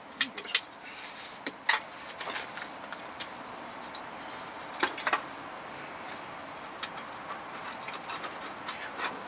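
Scattered light metallic clicks and clinks as a small folding metal stove is unfolded and set up by hand on a tabletop, over a steady hiss.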